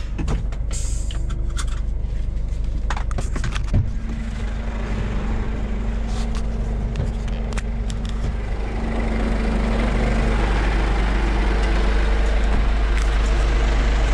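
Scania S500 truck's diesel engine idling steadily, with a few sharp clicks and knocks in the first seconds. The engine sound grows louder about nine seconds in.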